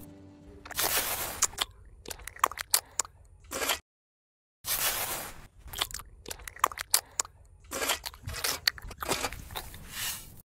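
Repeated crunching and scraping noises with sharp clicks, cut off to dead silence for under a second about four seconds in.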